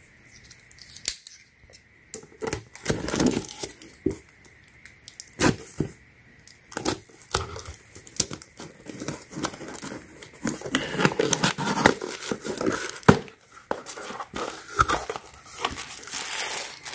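A white cardboard mailer box being opened by hand: a run of sharp clicks and scrapes as the tuck flap is worked loose and the lid lifted, then denser rustling and crinkling of tissue paper from about ten seconds in.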